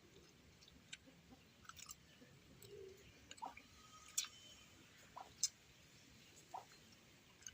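A person eating by hand: faint wet smacks and clicks of chewing, scattered a few seconds apart, the loudest about four seconds in.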